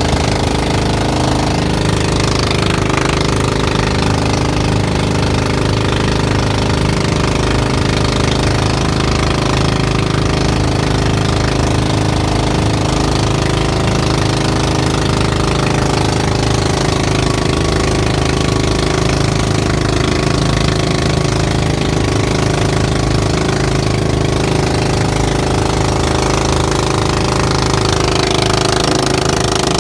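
Engine of a motorized bangka (Philippine outrigger boat) running steadily under way: a loud, even, knocking drone.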